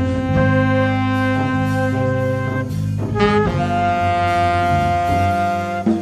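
Small jazz band playing live: saxophone and flute holding notes together over electric bass and drums. About three seconds in, a quick rising run settles into a long held note.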